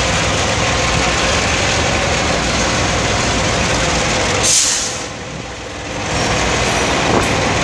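Freight train moving past: G22U diesel-electric locomotives running and freight wagons rolling on the rails, a loud steady noise. About halfway through comes a brief sharp hiss, after which the sound drops for about a second before returning.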